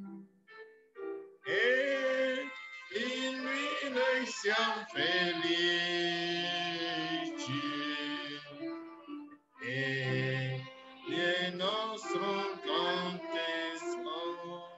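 A hymn sung in long held phrases with vibrato over a sustained low accompaniment, with a short break between phrases about two-thirds of the way through.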